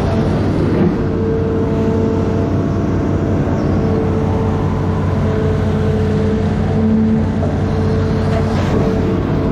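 Amphibious excavator's diesel engine running steadily under load, a constant drone with a held hum.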